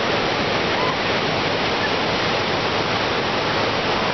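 Ocean surf: a steady, even rush of small waves breaking and washing in over the shallows.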